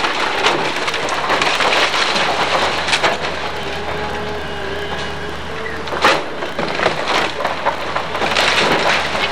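Hydraulic excavator running while its bucket breaks up a wood-frame house, with continuous crackling and splintering of timber and sharp cracks and crashes of falling debris. The biggest crash comes about six seconds in.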